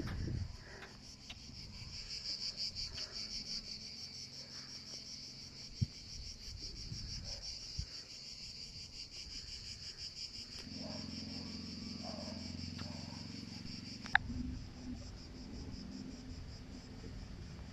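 Insects chirring in a steady, high-pitched drone with a fine pulsing texture. A low rumble joins about eleven seconds in, and there is a sharp click a few seconds later.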